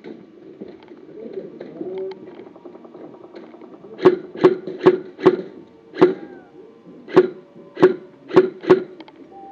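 Airsoft gun firing nine single shots in uneven succession, starting about four seconds in, after a few seconds of quiet rustling.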